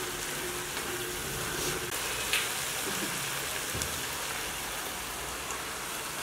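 Cabbage and chicken sizzling steadily as they fry in a pan, with a couple of light knocks from a wooden spatula.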